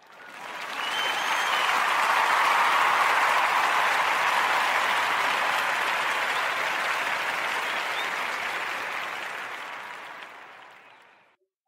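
Crowd applauding, fading in over the first second and fading out near the end, with a short whistle about a second in.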